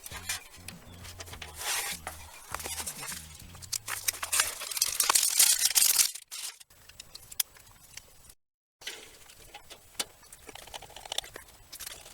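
Rustling and irregular clicking of PC power cables and connectors being handled and pushed into place, with a short dropout to silence about two-thirds of the way through.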